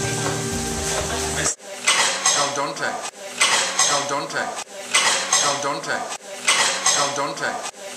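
Guitar music cuts off about a second and a half in; then cutlery and dishes clatter in a pattern that repeats about every second and a half.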